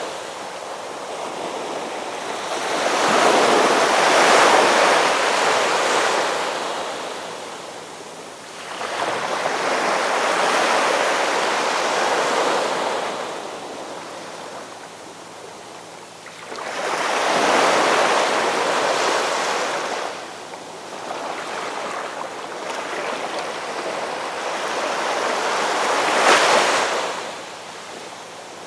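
Ocean surf on a beach: waves breaking and washing back, four surges that each build over a few seconds and fade, the last one cresting sharply near the end.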